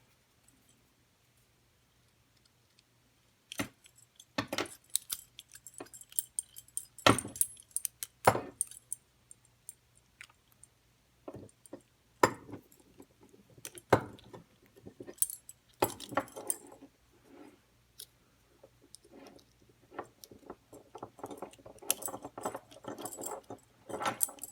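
Metal handcuffs being picked and handled: sharp metallic clicks and jingling at irregular intervals, starting a few seconds in and growing busier near the end, as a pick works the cuff's lock without opening it.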